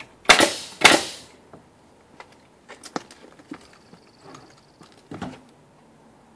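Pneumatic nail gun firing twice about half a second apart, each shot a sharp bang with a short burst of air hiss, driving nails into a 3/4-inch plywood window sill; a few lighter knocks follow.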